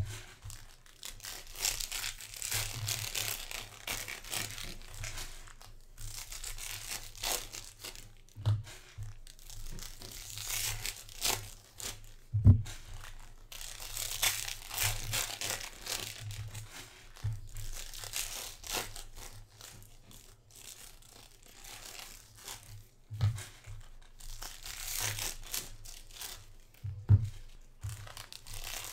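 Trading-card packs being torn open and crinkled by hand, in repeated stretches of rustling and crackling wrapper. A few dull thumps as packs are set down on the table, the loudest about twelve seconds in.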